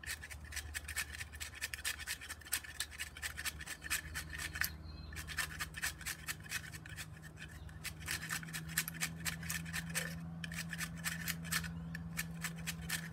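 A Smith's Pack Pal tinder maker, a small wood grater, rasping in quick back-and-forth strokes along a resinous fatwood pine plank, scraping off fine tinder shavings. There are brief pauses about five seconds in and again near ten seconds.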